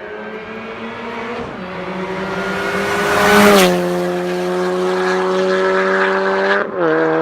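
Car engine held at high, near-steady revs, growing louder toward a peak about three and a half seconds in, where a burst of hiss cuts through. The pitch steps down slightly three times, about a second and a half in, just after the peak, and near the end.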